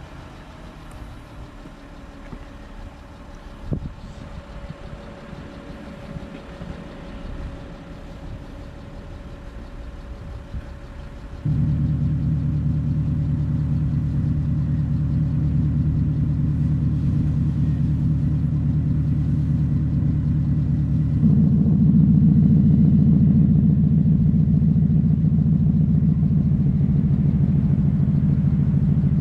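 Audi Q7 idling with a low rumble until, about a third of the way in, an electronic exhaust sound booster is switched on from a phone app. The booster's speaker abruptly adds a loud, steady, deep synthetic engine note. About two-thirds of the way through the note steps up suddenly to a louder, fuller setting.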